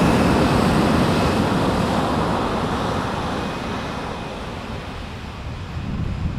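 Airbus jet engines at full takeoff thrust: a broad rushing roar of jet blast buffeting the microphone, fading steadily over several seconds as the aircraft accelerates away, with gusty wind noise picking up near the end.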